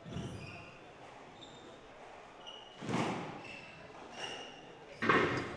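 Squash ball cracking off racket and wall twice, about two seconds apart, the second the loudest. Short high shoe squeaks on the wooden court floor come between the shots.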